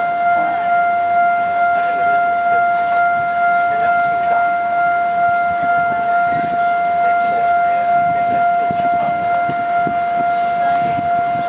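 Taiwan Railways level-crossing warning alarm sounding a steady, unbroken tone while the crossing is closed for an approaching train.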